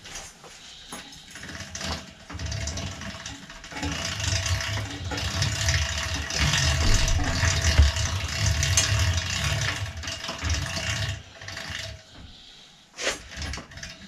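Engine-like mechanical rumble with rattling and a steady hum, building up about two seconds in, loudest in the middle and dying away about eleven seconds in. A few short metallic clicks come near the start and near the end.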